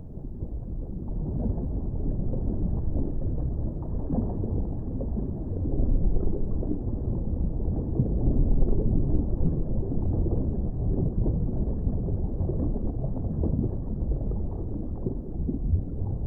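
A steady, muffled low rumble of noise with no voice or music, swelling a little around the middle.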